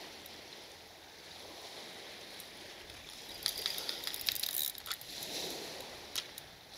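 Fishing reel clicking and rattling as a hooked fish is played: faint wash at first, then a burst of irregular clicks from about three and a half seconds in, with a couple of single clicks later.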